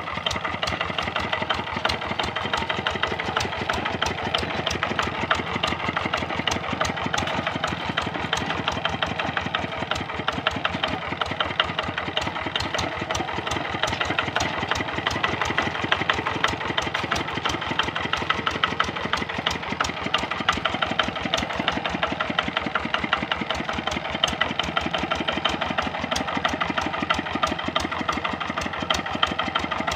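A Quick Capung Metal two-wheel hand tractor's Kubota RD65 single-cylinder diesel engine runs steadily as the tractor is driven along. It makes a fast, even beat of firing strokes.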